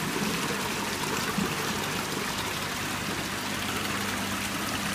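Water running and splashing in a recirculating fish-farm tank, an even rushing trickle, with a steady low pump hum underneath.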